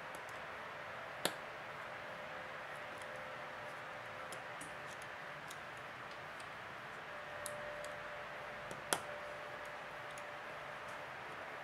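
Small clicks and ticks of a Samsung Galaxy Tab 3's internal parts being handled with fingers and a small tool during disassembly: two sharp clicks, one about a second in and one near nine seconds, with faint light ticks between, over a steady low hiss.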